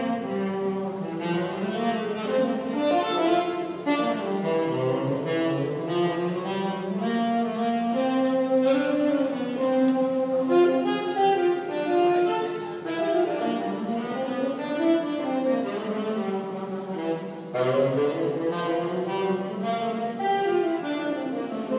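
Saxophone playing a slow melody of long, held notes that slide from one pitch to the next.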